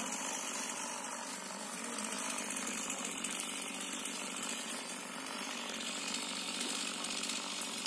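Chainsaw running steadily.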